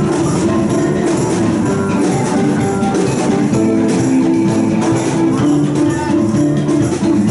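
A band playing music with a steady beat and percussion.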